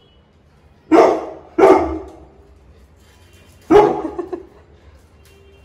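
A dog barking at a stranger in the house: three sharp barks, the first two close together and the third about two seconds later.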